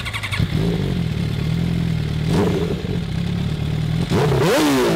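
Motorcycle engine running steadily at a low, even pitch, then revved hard several times near the end, the pitch sweeping up and dropping back with each blip.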